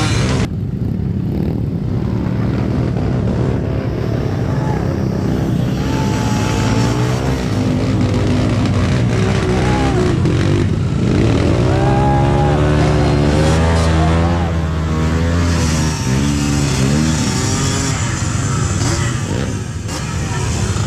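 Motorcycle engine running under riding load throughout, its pitch rising and falling repeatedly in the middle as the throttle is opened and closed.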